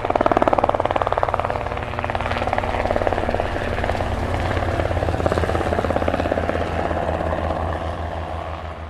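Helicopter in flight heard from inside the cabin: rapid, steady rotor-blade chop over the engine's running, fading somewhat near the end.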